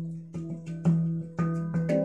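Handpan played with the fingertips: a quick run of struck steel notes, several a second, each ringing on over a repeated low note.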